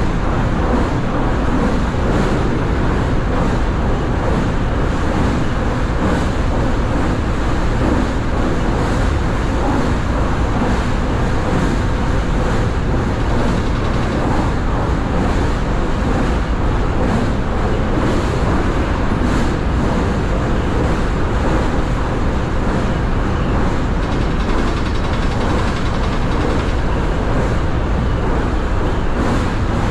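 Steady running noise of an electric train at speed, heard inside the front car: wheels rumbling on the rails with a constant low rush.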